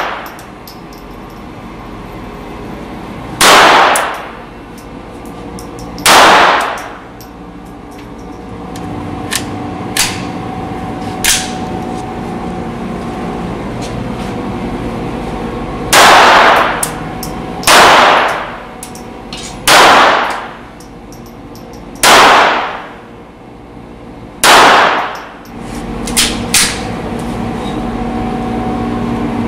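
Single shots from a Beretta 87 Target .22 LR pistol on an indoor range: seven sharp cracks a few seconds apart, each with a brief echo off the range walls. A few much fainter cracks fall between them, over a steady hum.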